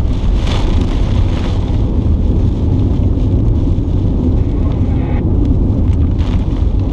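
Car driving on a rough country road, heard from inside the cabin: a steady low rumble of engine and road noise, with a few brief faint rattles.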